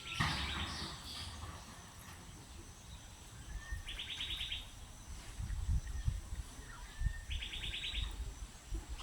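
A songbird repeating the same short song three times, about three and a half seconds apart: a brief rising note followed by a fast, dry trill. Low wind rumble runs underneath.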